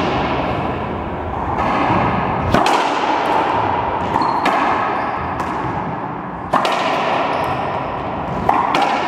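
Racquetball rally: the hollow rubber ball cracking off the racquets and the court walls, about five sharp hits roughly one to two seconds apart, each echoing in the enclosed court.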